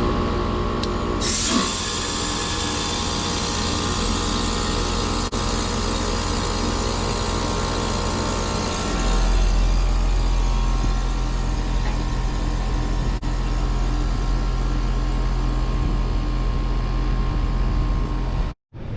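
Trane XR heat pump's outdoor unit running, its compressor and condenser fan giving a steady hum. About a second in a loud rushing hiss starts and fades away over several seconds, and the low hum grows heavier about halfway through.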